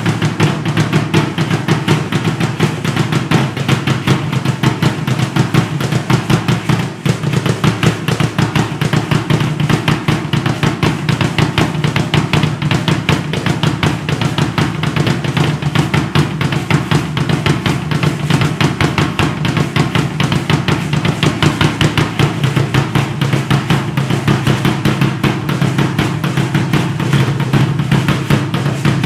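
Drums played in a fast, unbroken, steady beat, accompanying Aztec-style dancers.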